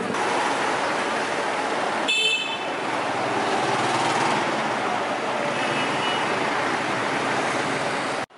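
Steady city street traffic noise with passing vehicles, and a short, high-pitched horn toot about two seconds in.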